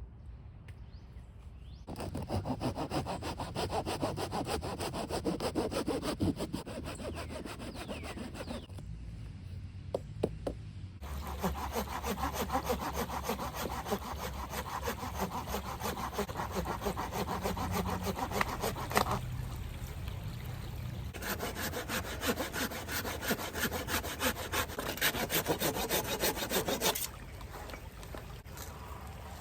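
Hand saw cutting through a log with rapid back-and-forth strokes, in three spells of several seconds each with short pauses between.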